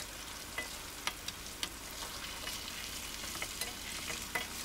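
Hot oil sizzling as marinated beef slices deep-fry in a stainless steel wok, with scattered sharp clicks of a metal ladle and perforated skimmer against the wok as the finished beef is scooped out of the oil.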